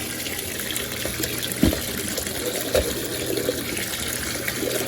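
Kitchen tap running cold water over boiled okra in a strainer, the water draining through into the sink, to rinse the slime out. Two soft knocks come about a second apart near the middle.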